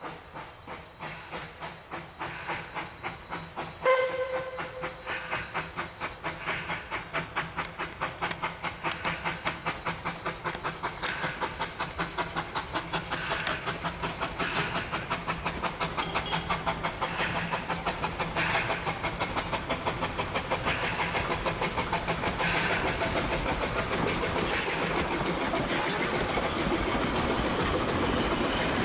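Puffing Billy NA class 2-6-2 tank steam locomotive 6A pulling away from a station. Its exhaust chuffs quicken from about two to nearly four a second and grow louder as it approaches, over a steady hiss of steam. One short whistle blast about four seconds in is the loudest sound.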